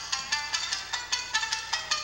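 Tsugaru shamisen played solo, the plectrum striking quick, sharp notes at about six a second.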